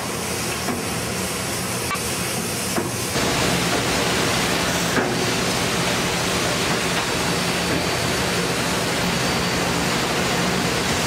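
Liberty Belle riverboat's steam engine running and its paddle wheel churning the water: a steady hissing rush, with a low hum joining about three seconds in.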